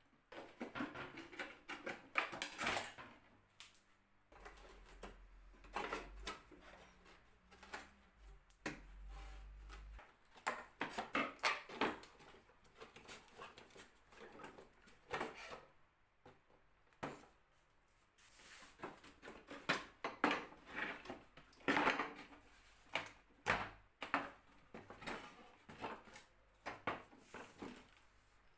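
Irregular knocks, clicks and clatter of wooden and small metal parts being handled and worked on a wooden cabinet, with a low hum for a few seconds about four seconds in.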